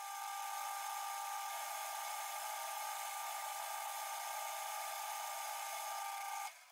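Small metal lathe running with a steady high-pitched whine and a hiss during a cut on the collet chuck blank. It stops abruptly near the end.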